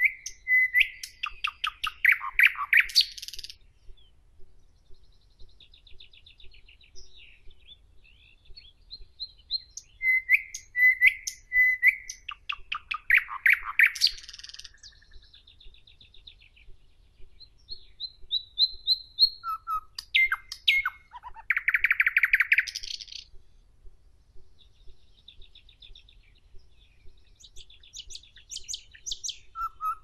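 Nightingale singing: loud phrases of rapid repeated notes and rattling strokes come about every ten seconds, with softer high trills between them.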